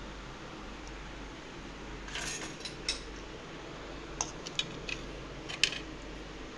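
Steady hum of a fan, with a short scrape about two seconds in and then a few light, sharp clinks of a metal utensil against a plate as sliced bread is handled.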